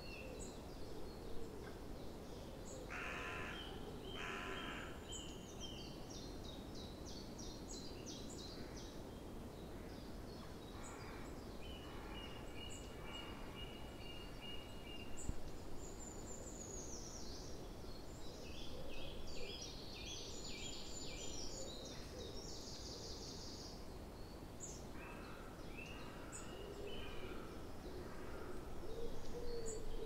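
Several wild birds singing in a spring woodland: high repeated notes and fast trills from more than one bird, with two harsh calls about three to five seconds in. A steady low background noise runs under the song.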